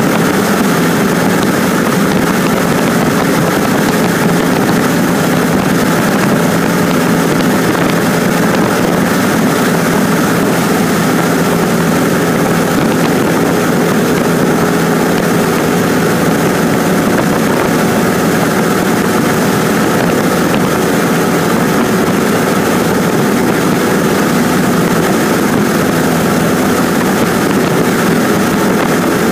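Cessna 150's four-cylinder Continental O-200 engine and propeller running steadily in flight, heard inside the small cabin as an even drone with rushing air noise.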